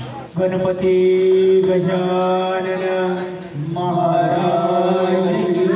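Devotional chanting in two long held phrases, the second starting about three and a half seconds in, accompanied by an electronic keyboard played through a loudspeaker.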